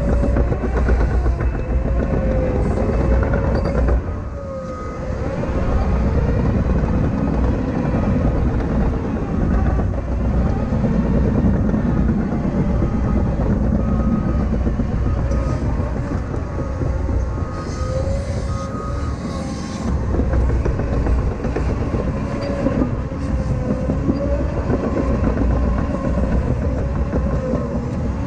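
CAT 953K track loader's diesel engine running with a steady heavy rumble and clatter, and a wavering whine over it. The engine eases off briefly about four seconds in, then picks back up.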